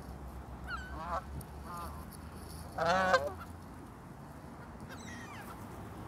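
Canada geese honking: a few separate calls, a short one about a second in and the loudest, longest honk about three seconds in.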